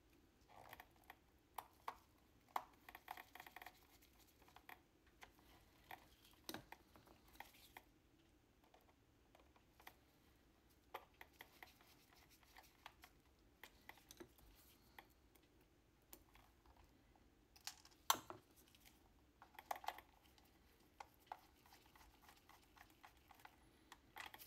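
Faint, scattered clicks and scrapes of a small Phillips screwdriver turning screws into the plastic back case of an Elecom HUGE trackball. Each screw is turned backwards until its thread clicks into place, then tightened. The sharpest click comes a little past the middle.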